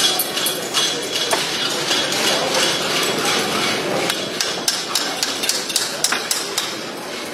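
Farrier's driving hammer tapping Liberty Cu 6 Combo Slim horseshoe nails through the shoe into a horse's hoof: runs of quick, sharp metallic taps as each nail is driven home.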